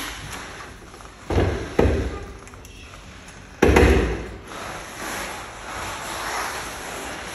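Three sudden dull thumps: one about a second in, a second just after, and the loudest near the middle, each dying away quickly, over a steady background hiss.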